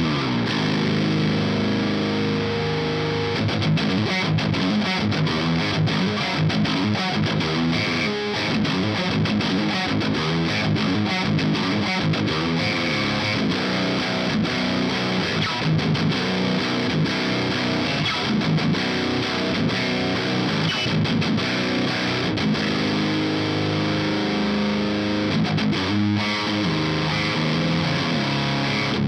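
Heavily distorted electric guitar played through a modified 50-watt Marshall JCM 900 SL-X valve amp head into a Mesa Rectifier 4x12 cabinet, close-miked with an SM57: continuous high-gain riffing with fast picked passages and a few held notes.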